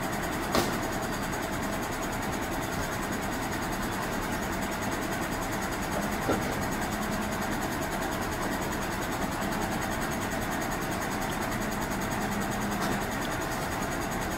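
Rear-loading garbage compactor truck idling steadily, with a few sharp knocks as rubbish is thrown into its hopper, about half a second in and again about six seconds in.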